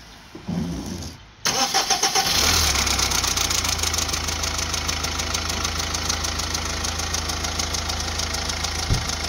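Subaru Boxer Diesel flat-four turbodiesel starting: it catches suddenly about a second and a half in and settles into a steady, evenly pulsing idle. It is a very hard start on a completely flat battery, made on the power of a portable jump starter.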